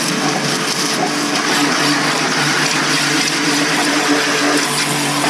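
High-pressure water jet from a hand-held pressure washer gun with a 0-degree nozzle, spraying a steady hiss against a vehicle's wheel and side panels, with the Ryobi 2500 electric pressure washer's induction-motor pump running underneath as a steady hum.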